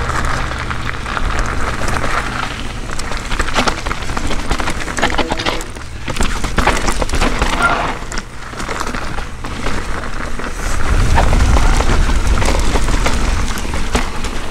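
Mountain bike riding down a dirt trail, heard from a chin-mounted action camera: wind buffeting the microphone, with the bike clattering and rattling over bumps. The wind rumble gets louder about eleven seconds in as the speed picks up.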